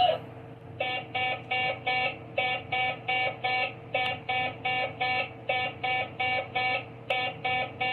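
Toy robot's electronic beeping: a quick run of short, even beeps, about three a second, that begins about a second in. It sounds a bit like R2-D2.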